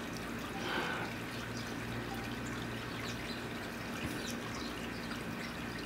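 Steady trickling of running water, with a few faint, short, high chirps from small birds and a brief soft rustle just under a second in.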